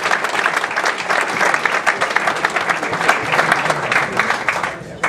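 Crowd applauding: dense, steady clapping from a room full of people.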